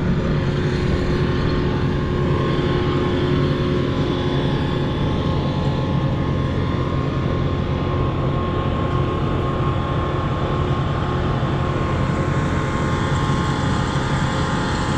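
Heavy machinery engine running at a steady speed, an even drone that doesn't change.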